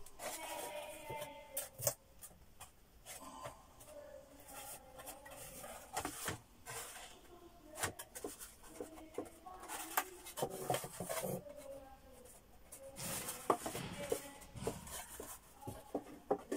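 Thin plywood drawer box being handled on a workbench: scattered knocks and taps of wood on wood, with rubbing and scraping in between.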